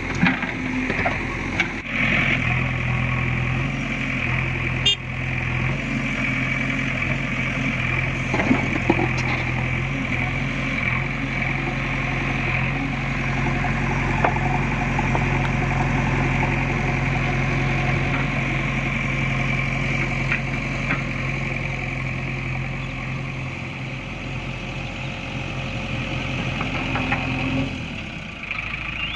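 JCB 3DX backhoe loader's diesel engine running steadily, with a few sharp knocks in the first several seconds. Its low hum drops away near the end.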